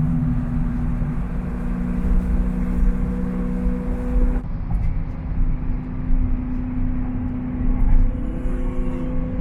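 Car cruising at a steady speed: an even engine drone over low road rumble. The sound changes abruptly about four and a half seconds in, when the hiss in the high end drops away.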